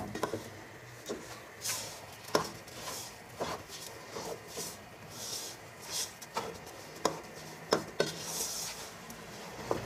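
A spoon stirring grated carrots and sugar in a cooking pot: soft scraping of the mash, with irregular knocks of the spoon against the pot about once or twice a second.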